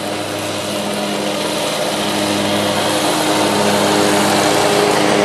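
Small engine running steadily at a constant speed, slowly growing louder.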